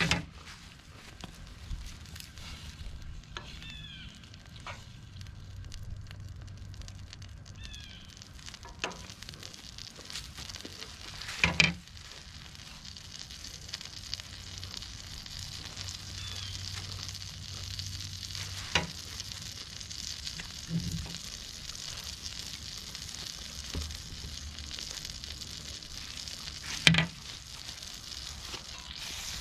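Butter melting and sizzling in a hot cast iron skillet on a gas camp stove, the sizzle growing steadily stronger through the middle of the clip. A few sharp knocks cut across it, the loudest about a third of the way in and again near the end.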